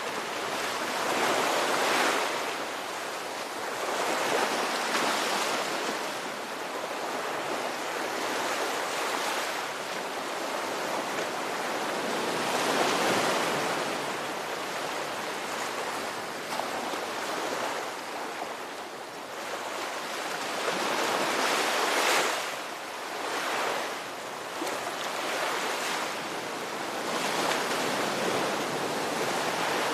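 Ocean waves breaking and washing on a shore: a continuous surf hiss that swells and fades every few seconds, with stronger surges a few times.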